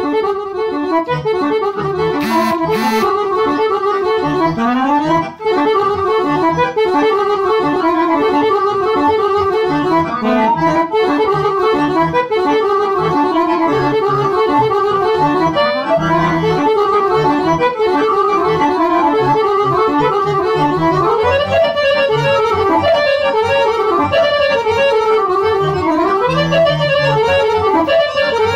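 Two digital piano accordions playing a fast, densely ornamented instrumental tune together, a quick-moving melody over a steady bass accompaniment.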